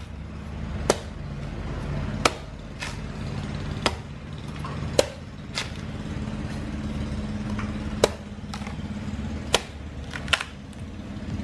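A large knife chopping into the fibrous husk of a young green coconut, about ten sharp strikes at uneven intervals as the top is trimmed open. A steady low rumble runs underneath.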